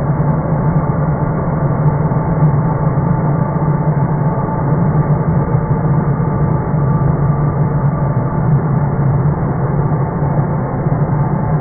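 Leaf blower running steadily at one constant speed, a loud, even hum with no revving.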